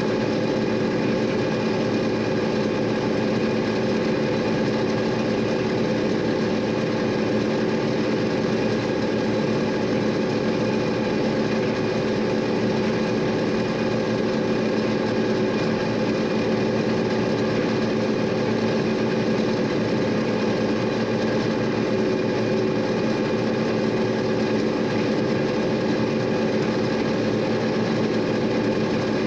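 John Deere 6620 combine running steadily while harvesting corn, its engine and machinery holding a constant drone with no change in pitch.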